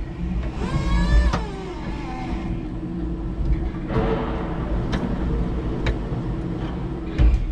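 5-ton electric forklift truck driving, with a steady motor hum over a low rumble and a few sharp knocks and rattles. A brief wavering tone sounds about a second in.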